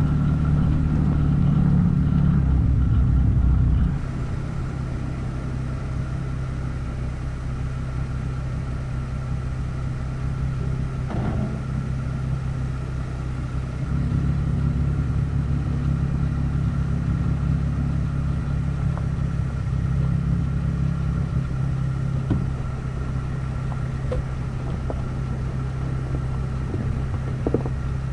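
Jeep Wrangler's engine and drivetrain running steadily at low speed as it crawls along a rocky dirt trail. The loudness drops abruptly about four seconds in and rises again about ten seconds later, with a few small clicks and knocks from the tyres on the rocks.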